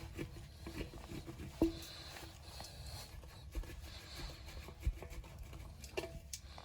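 Faint handling noises of hands and tools on a pickup tire: scattered small clicks and scrapes, with a sharper knock about a second and a half in and a dull thump near the end.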